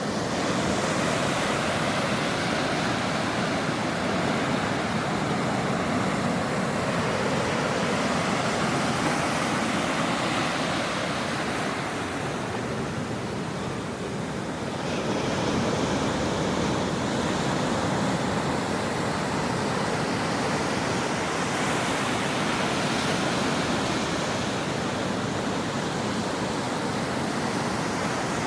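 Ocean waves breaking on a shore, a continuous wash of surf that swells and eases slowly, with a lull about halfway through before the next wave builds.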